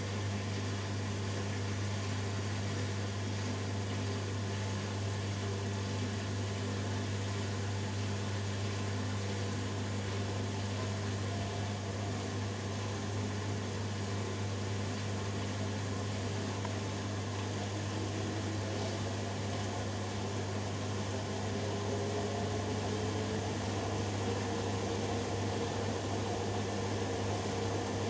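Hoover Dynamic Next DXA610IW3 washing machine on its spin cycle: a steady motor hum with drum noise, and a whine that rises in pitch over the last several seconds as the drum speeds up.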